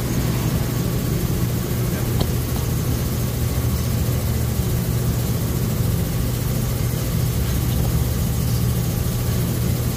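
An engine idling: a steady, even low drone that neither rises nor falls, with a faint click about two seconds in.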